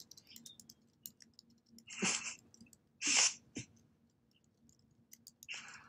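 Three short breathy exhalations close to a headset microphone, about two, three and five and a half seconds in, with faint scattered clicks between them.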